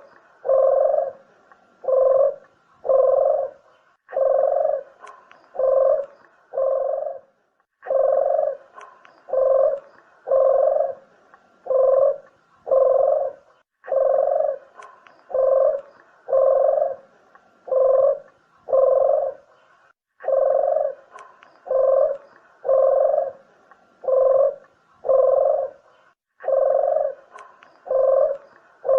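Puter (ringneck dove) cooing: low coos in phrases of about five or six notes, the phrase repeating about every six seconds with a short pause between.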